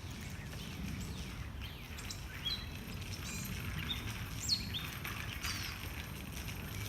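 Small birds chirping: a scattered series of short, high calls, several sweeping downward in pitch, over a steady low rumble.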